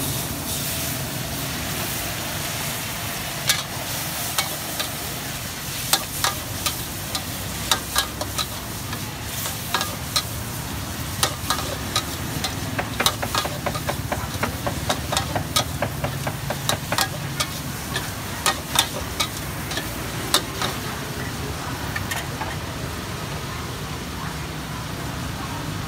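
Metal ladle scraping and clanking against a wok as food is stir-fried, over a steady sizzle. From a few seconds in until a few seconds before the end, the ladle strikes come in a busy run of sharp clanks, a few a second, then thin out.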